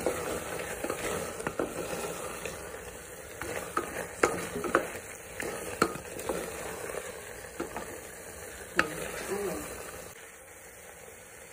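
Wooden spatula stirring and scraping chunks of beef coated in spice powder in a metal pressure cooker pot, with sizzling underneath. Irregular sharp knocks come as the spatula hits the side of the pot, the loudest about 4, 6 and 9 seconds in; the stirring eases off near the end.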